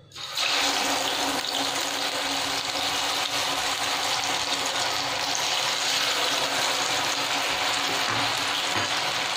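Batter-dipped rice-flour cutlets deep-frying in hot oil: a steady sizzle that starts suddenly about half a second in as the first cutlet goes into the oil.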